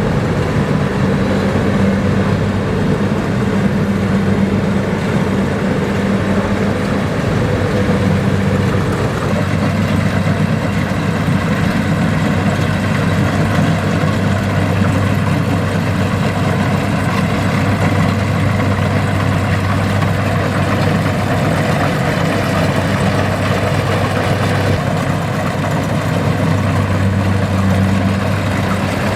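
Kubota rice combine harvester's diesel engine running steadily, a constant low drone over a dense, even mechanical noise.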